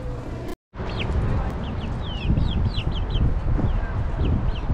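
Sound cuts out briefly about half a second in, then birds chirp and peep in many short, quick high calls over a low rumble, the clucking chirps of farmyard fowl.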